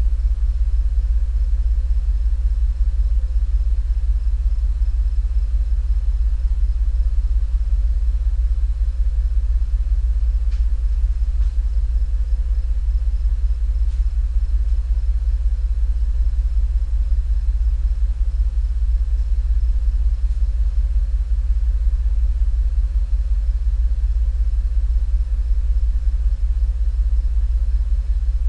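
Cadillac STS engine running with a steady low rumble; the engine has a misfire caused by worn piston rings.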